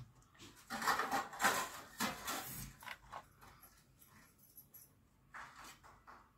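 Plastic spinning toy whirling on a concrete floor, with an irregular rattling noise for the first few seconds that thins to fainter scattered clicks.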